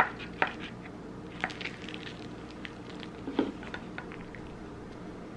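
Black plastic serving spoon scooping chicken tot pie out of a glass baking dish. There are a few sharp clicks of spoon against glass near the start and again around a second and a half in, then a duller knock about three and a half seconds in.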